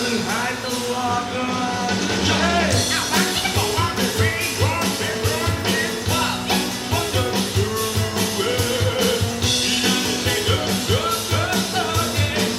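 Rock song with singing and guitar, played back through a Genesis Naptune GT65.2 speaker set on its original passive crossover with no EQ. A steady drum beat comes in about three seconds in.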